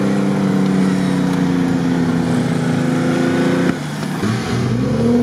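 Toyota Land Cruiser 80-series engine held at high revs under heavy load as the truck ploughs through deep, crusted snow, its pitch sagging slightly. About three and a half seconds in, the revs drop away suddenly, then climb again near the end.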